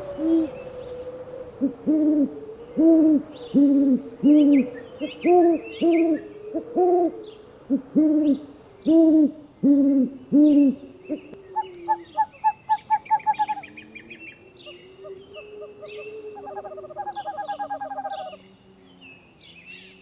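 Owl hooting: a series of short, deep hoots, roughly one to two a second, for about the first eleven seconds. After that come quieter, higher chirps and trills, with a fast even trill near the end.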